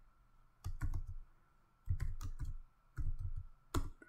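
Typing on a computer keyboard: quick clusters of key clicks in about four bursts, roughly a second apart, with a faint steady high whine underneath.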